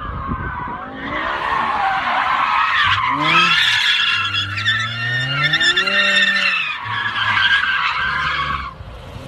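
BMW car drifting: its tyres squealing hard while the engine revs rise and fall, the squeal cutting off near the end.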